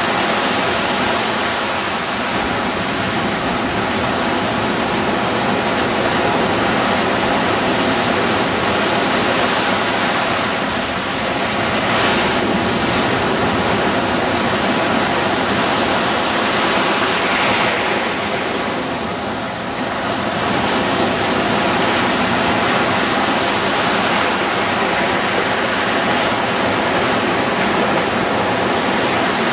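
Ocean surf breaking and washing up the beach: a steady rush of white water that swells and eases slightly as the waves come in.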